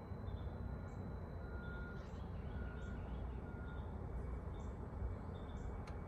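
Outdoor ambience: short, high bird chirps repeating about once a second over a steady low rumble.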